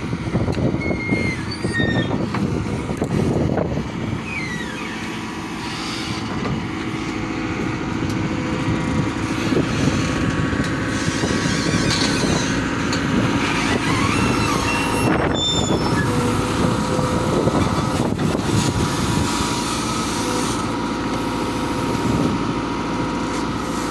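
Caterpillar 428E backhoe loader working, its diesel engine running steadily throughout, with a slight dip in level about five seconds in.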